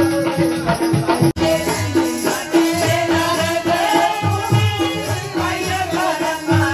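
Live music with singing over a steady, repeating rhythmic beat and rattling percussion. The sound drops out for an instant about a second in.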